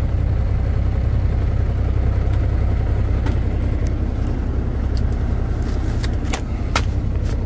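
Semi-truck's diesel engine idling, a steady low rumble heard inside the cab. A few sharp clicks and taps in the second half come from things being handled near the microphone.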